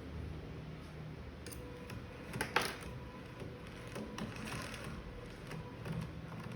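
3D-printed rotary inverted pendulum rig running: its motor and printed parts give irregular light clicks and ticks over a faint steady hum, with one louder click about two and a half seconds in.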